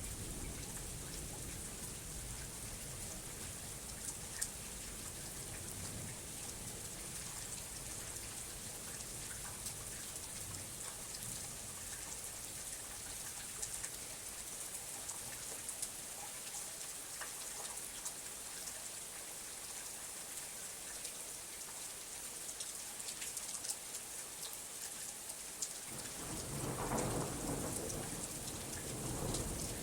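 Steady heavy rain hissing, with scattered sharp drop clicks. A low rumble of thunder dies away over the first few seconds, and a new roll of thunder builds in about 26 seconds in and grows toward the end.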